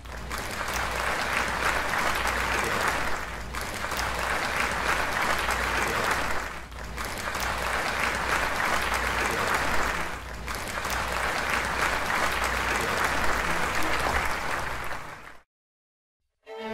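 Audience applauding in four rounds one after another, each a few seconds long, then cutting off suddenly about a second before the end.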